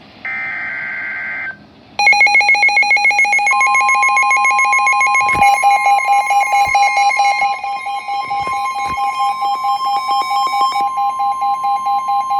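Emergency Alert System tones: the last screechy burst of the digital data header, then a loud pulsing, buzzy alert tone starting about two seconds in. About a second and a half later a steady higher tone joins it, and both cut off abruptly near the end, signalling that a warning message follows.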